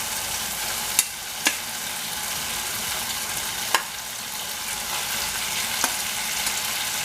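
Onion-tomato spice masala sizzling steadily in a frying pan as the eggs go in, with four sharp clicks of a utensil against the pan.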